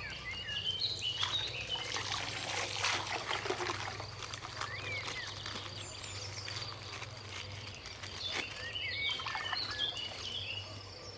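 Small birds chirping now and then in the background, over a soft noisy rustle and a steady low hum.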